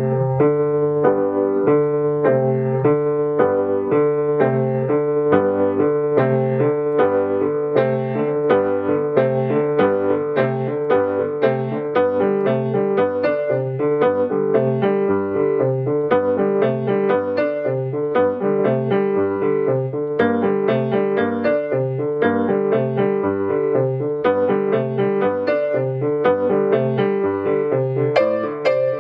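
Acoustic grand piano playing a beginner's train piece: steady, evenly repeated notes in both hands, with a repeating bass figure that imitates a chugging freight train.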